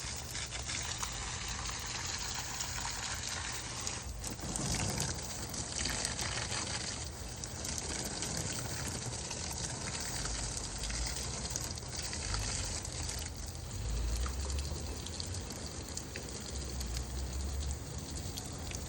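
Water gushing and splashing steadily as a garden is watered, the splash changing in character now and then.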